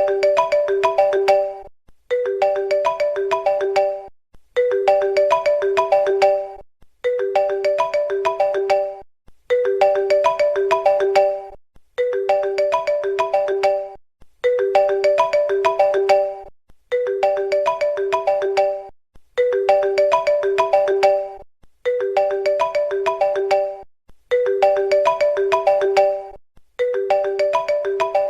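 Phone ringtone melody: a short phrase of quick pitched notes repeating about every two and a half seconds, with a brief pause between repeats.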